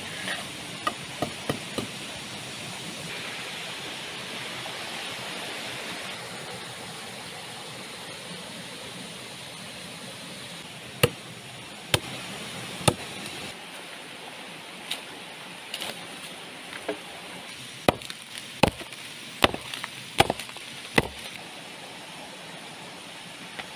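Blade chopping into wood over a steady rushing hiss of water. There is a quick run of five chops in the first two seconds, then after a long pause about ten more sharp strikes, spaced roughly a second apart.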